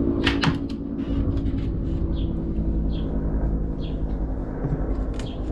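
A couple of knocks from a wooden cooler cart being handled near the start, over a steady low rumble and hum. Faint high chirps repeat about once a second.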